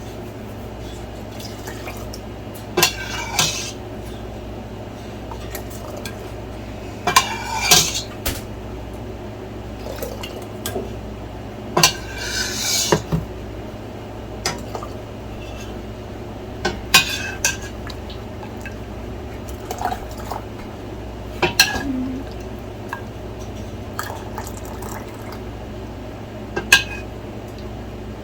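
Metal utensils and glass jars clinking and knocking every few seconds, with a brief scrape about halfway through, as homemade herbal cough syrup is ladled into glass jars. A steady low hum runs underneath.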